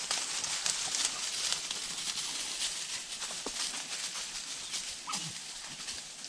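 Footsteps through dry leaf litter and brush, crunching and rustling in an uneven rhythm, with twigs and leaves brushing past.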